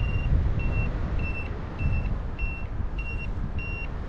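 Paraglider's flight variometer beeping in short, evenly spaced high beeps, about one and a half a second, the tone it gives in a climb, here about 2.5 metres per second. Wind rushes on the microphone underneath.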